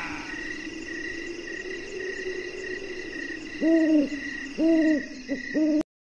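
Four hooting calls over a steady low drone, each rising and then falling in pitch, two long and then two short. The sound cuts off suddenly near the end.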